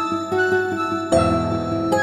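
Soft instrumental background music: gentle melodic notes over sustained chords, growing fuller about a second in.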